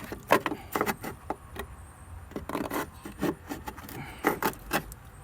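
Irregular clicks, scrapes and rustles of a duct-tape-wrapped stick working dry leaves and debris out of the blower motor resistor opening in the blower housing.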